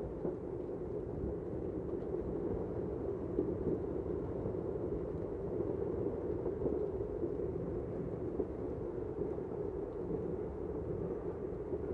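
Hail and heavy rain falling steadily on parked cars and pavement: an even, dull noise with no single impact standing out.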